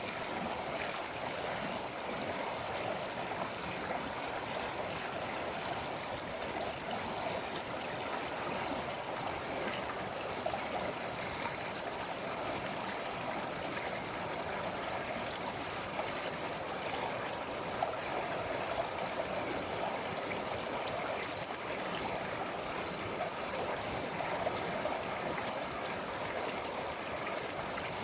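A mountain river running over rocks: a steady rush and babble of flowing water.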